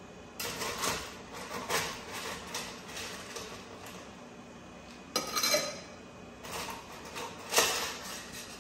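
Ice cubes clattering in a copper ice bucket as they are picked out, and clinking into a rocks glass of bourbon, in several short bursts of clinks; the loudest comes about seven and a half seconds in.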